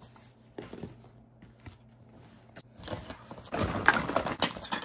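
Fabric tote bag rustling as it is tipped out, with small plastic toiletry and makeup items tumbling out and clicking against one another, in the last second or so; before that only a few faint handling clicks.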